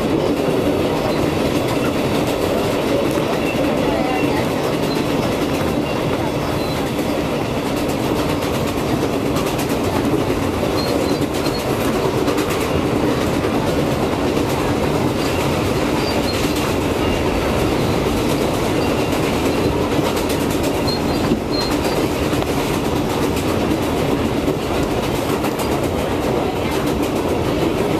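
Interior sound of an R142A subway car running at speed on elevated track: steady wheel-on-rail noise with a light clickety-clack from the rails.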